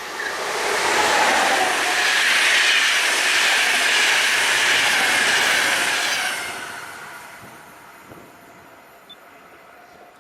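A train passing close by at speed: loud wheel-on-rail running noise swells in the first second, holds for about five seconds, then fades away as it recedes.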